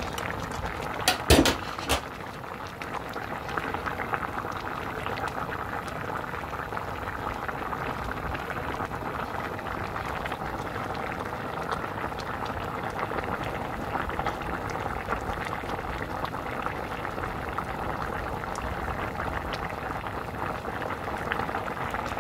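Spicy abalone stew boiling hard in a pot, a steady bubbling, with a few sharp knocks about a second in.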